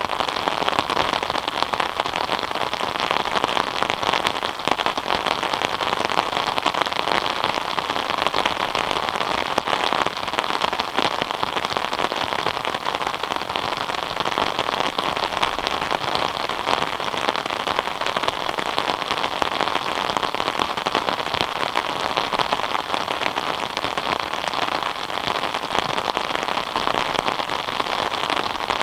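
Steady rain falling, a dense even patter of drops on a surface with no let-up.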